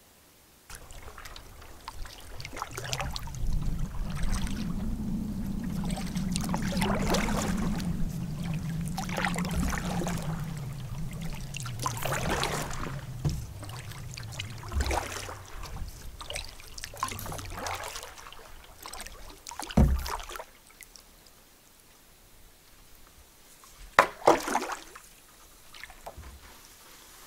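Paddling a Swift Adirondack Packboat solo canoe: paddle strokes swishing and dripping in the water every few seconds, over a low rumble through the first half. Two sharp knocks near the end.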